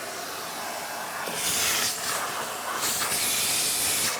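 Vacuum cleaner hoovering out a car's interior: a steady rushing hiss of air that swells louder twice as it works.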